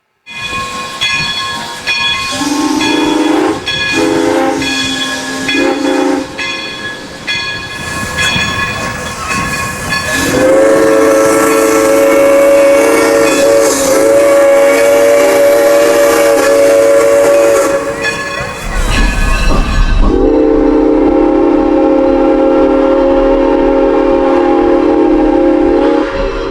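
Locomotive chime whistle: a chord of several tones sounding together, with hissing underneath. First a few short toots, then a long blast held for about seven seconds, and after a break a second long blast of about six seconds.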